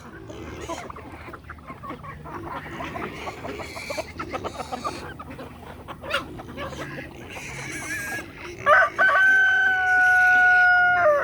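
Chickens clucking and calling as a flock. Near the end a rooster crows loudly: one long, steady-pitched crow of about two and a half seconds that drops as it ends.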